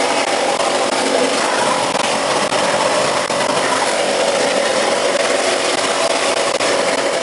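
Wet blasting gun spraying a slurry of water and abrasive media with compressed air onto a motorcycle clutch cover: a steady, loud hissing rush.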